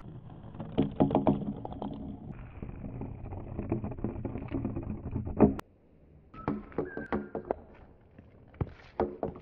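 Colourful balls rolling along a wooden trough track: a steady hollow rumble with many knocks, which cuts off suddenly about five and a half seconds in. After it comes a run of separate knocks and clacks, some with a short ring, as balls bump along the wood and into each other.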